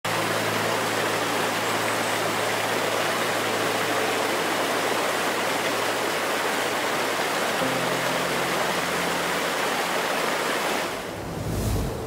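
Waterfall rushing: a steady, loud wash of falling water, with faint low sustained tones underneath that shift in pitch about two-thirds of the way through. Near the end the water sound drops away and a brief low whoosh swells.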